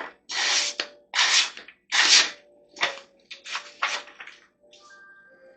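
A steel knife blade drawn in a quick series of about six scraping strokes, roughly one every three-quarters of a second, fading out after about four seconds.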